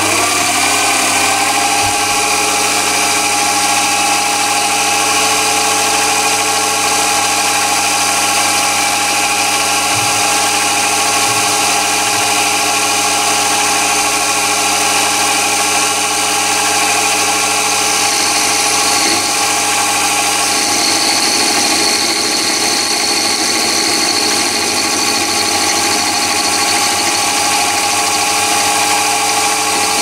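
Chinese mini lathe running under power, its motor and gear train giving a steady whine of several tones. A higher whine joins about two-thirds of the way through.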